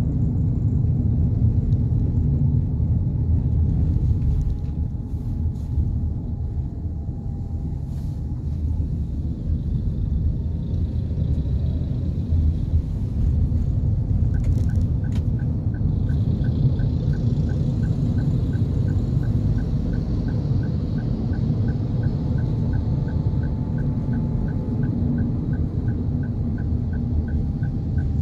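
Cabin noise of a 2022 Toyota Avanza 1.3 with CVT on the move: a steady low rumble of road and engine. About halfway in, the turn-signal indicator starts ticking evenly, about three ticks a second.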